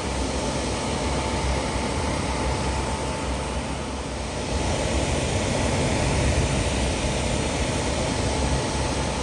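Suburban SF-30 propane RV furnace running with its burner lit, the blower pushing out warm air with a steady rushing hum and a faint constant whine. The furnace is heating properly now that a new burner igniter is fitted and a clogged orifice has been cleaned.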